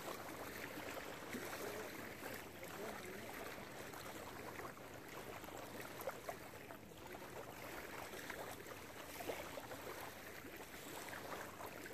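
Faint, steady lakeshore background noise with scattered small clicks.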